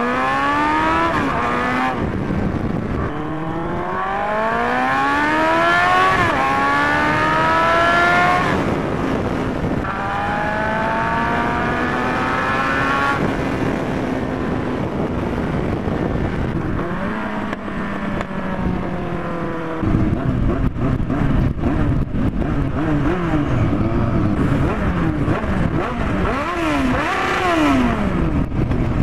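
Yamaha FZR1000 inline-four engine running with no exhaust, accelerating hard through the gears. The pitch climbs in long rising sweeps and drops at each upshift, three pulls in the first half. Later the revs rise and fall in short quick swings under a rush of wind noise.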